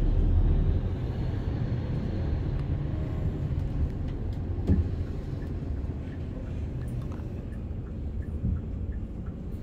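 City bus running, heard from inside the cabin: a steady low engine and road rumble that eases off gradually, with a few faint knocks and rattles, the clearest about halfway through.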